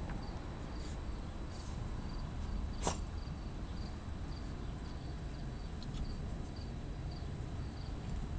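Crickets chirping steadily, about two chirps a second, over a low background rumble. A single sharp click comes a little under three seconds in.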